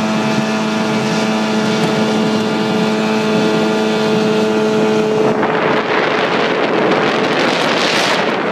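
Small boat's motor running at a steady pitch while under way. About five seconds in, its lower tone drops away and a loud, even rushing noise takes over.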